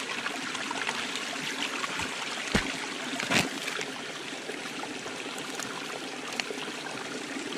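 Small stream trickling steadily over rocks, with two light knocks of wooden sticks about a third of the way in as a dying campfire is pulled apart.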